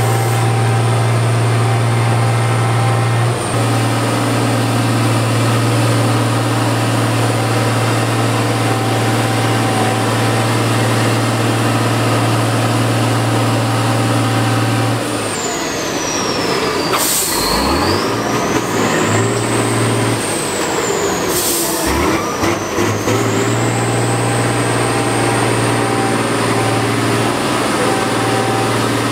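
Tatra 815 trial truck's diesel engine running at steady revs while the truck works through a muddy water trench. About halfway through the revs drop and vary unevenly for several seconds, with a high whine that falls and rises and a couple of sharp knocks, before the engine settles back to steady running.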